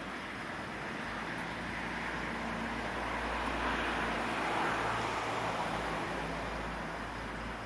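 Background road traffic noise: a passing vehicle swells to its loudest about four to five seconds in, then fades back into a steady hiss.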